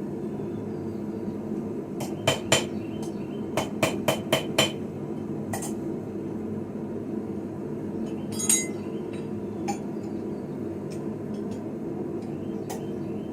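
Hand hammer striking forged steel on an anvil: three quick blows, then a run of six, a single blow, one strike that rings on, and a few light taps, over a steady low background noise.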